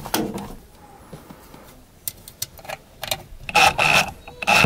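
Scattered clicks and rustling of hands working wires into the exhaust fan's sheet-metal wiring box, with a louder metallic clatter about three and a half seconds in as the box is closed up.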